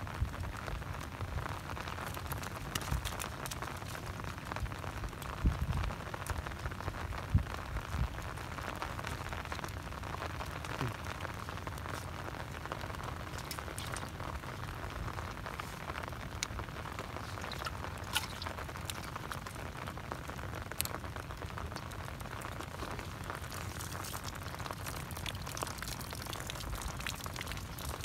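Steady rain falling on wet ground, with a few dull knocks between about five and eight seconds in.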